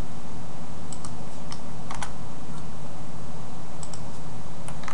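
Computer keyboard typing: scattered keystrokes, a few at a time with short pauses, over a steady low hum.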